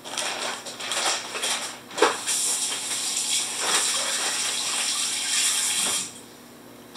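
A plastic bag crinkling, then a kitchen faucet running into the sink for about four seconds and shut off near the end.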